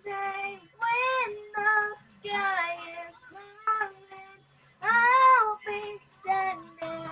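A high-pitched voice singing or calling in a string of drawn-out, pitch-sliding notes, about eight of them, the loudest and longest about five seconds in.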